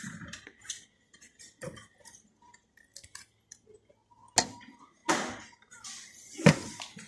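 Plastic supermarket shopping cart rattling and clicking as it is handled, with three sharp knocks about four and a half, five and six and a half seconds in as goods go into the basket.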